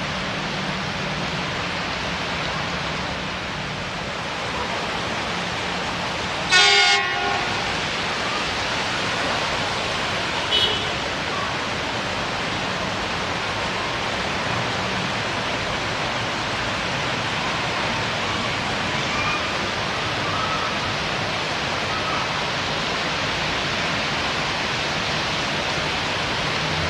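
Heavy rain pouring steadily, with a train horn giving one short, loud toot about six seconds in. A low steady hum under the rain fades out about halfway.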